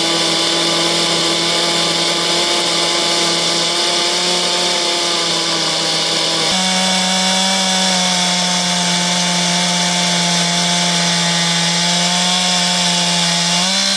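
Chainsaw running at full throttle, ripping lengthwise along the grain of a large elm log to mill off a slab. The engine note holds steady and steps slightly higher about halfway through.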